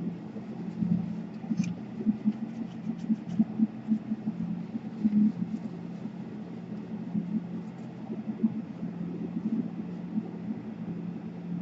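A steady low hum, with a few faint light clicks in the first few seconds.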